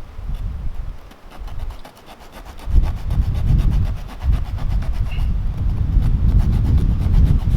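Heavy wind gusting and buffeting the microphone, easing about a second in and surging back strongly a little before the three-second mark. A faint, fast, even ticking runs over it.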